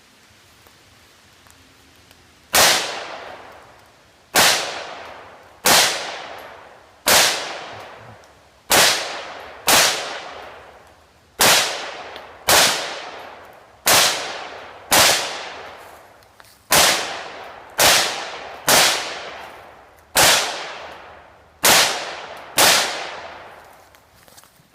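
Gunfire at a steady pace: about seventeen shots, roughly one to one and a half seconds apart, each with a long echoing decay. The first shot comes about two and a half seconds in.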